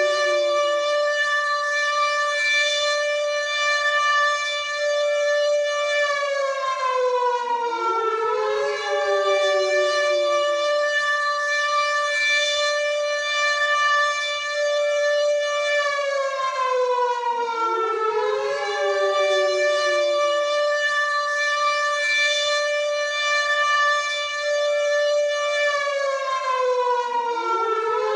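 WW2-style air raid siren wailing. Its pitch rises, holds steady for several seconds, then falls, repeating about every nine to ten seconds, with each falling tone overlapping the next rise.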